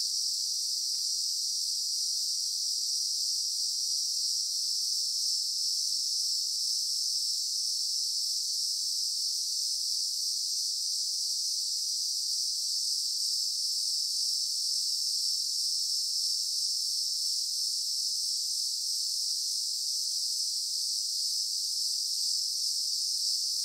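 A steady, high-pitched insect chorus that never pauses or changes.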